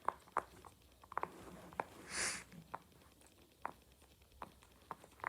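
Silicone pop-it fidget toy shaped like a burger being pressed, its bubbles popping in about a dozen soft, irregular clicks, with a short hiss about two seconds in.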